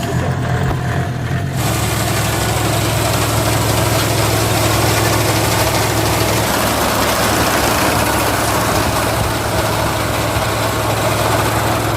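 Engine of a small tracked rice-harvesting machine running steadily just after starting, its broken belt newly replaced; about a second and a half in, a louder even rush of machinery noise joins the engine hum as the drive takes up and the machine works.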